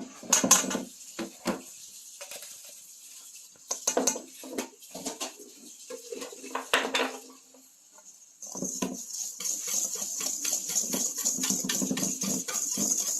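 Kitchen utensils and dishes clattering, with scattered knocks. From about eight seconds in comes a steady run of rapid scraping clicks of a utensil working in a bowl.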